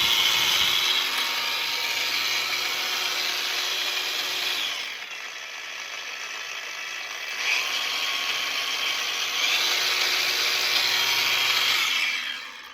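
Cordless 21-volt variable-speed angle grinder running with a steady high whine. About five seconds in it drops to a lower speed, then speeds back up in two steps, and it winds down near the end.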